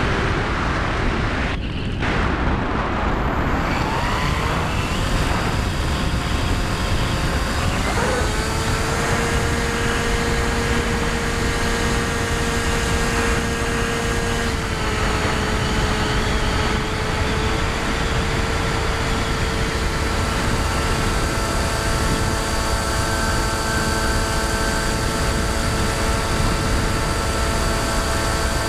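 Electric motor and propeller of a Bixler 2 RC foam plane, heard from a GoPro mounted on it: a steady whine of several tones over heavy wind rush on the microphone. The whine rises in pitch about four seconds in, steps up again around eight seconds in, and shifts slightly a few times after.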